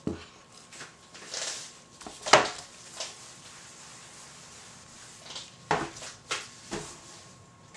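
Plastic jug and silicone spatula being handled on a stainless steel worktop: a handful of scattered knocks and clatters, the loudest about two and a half seconds in.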